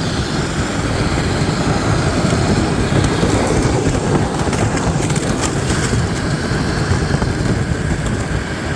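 Steady rushing, scraping noise of a sled being towed across ice behind a Traxxas X-Maxx RC truck.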